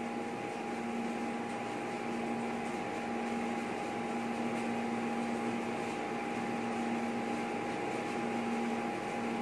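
Steady hum and whirr while the DVD-based karaoke player loads the selected song, with two constant tones under a soft noise. No music has started yet.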